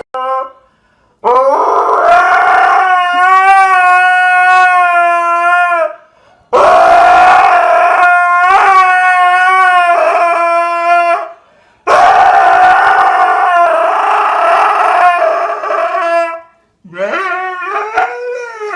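A dog howling: three long, steady howls of four to five seconds each with short breaths between, then shorter howls that rise and fall near the end.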